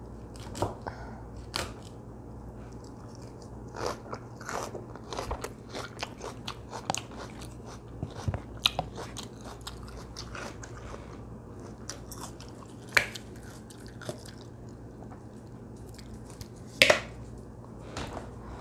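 A person chewing crunchy salad of lettuce, onion and cucumber: a long run of irregular crunches and mouth clicks, with two sharper, louder clicks, one about two-thirds of the way through and one near the end.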